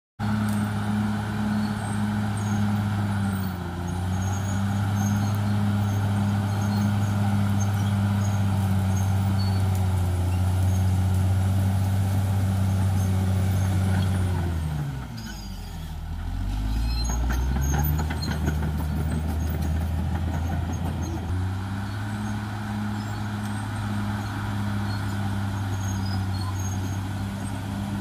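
Caterpillar D6R XL bulldozer's diesel engine running steadily under work as the dozer pushes soil. About halfway through the engine note drops sharply, then climbs back to its working pitch a few seconds later.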